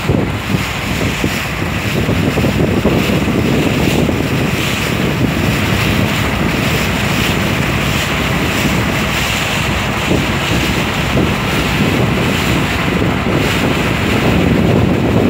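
Steady wind noise on the microphone aboard a moving small river boat, over the constant rumble of the boat's engine and water rushing past the hull.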